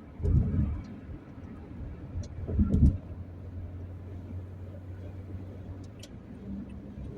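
Vehicle ride noise with two loud, low, heavy thumps about two seconds apart, followed by a steady low hum.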